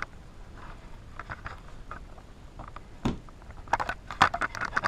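Cardboard box and packaging being handled and opened: scattered rustles and clicks, a dull knock about three seconds in, then a quick run of crackling near the end.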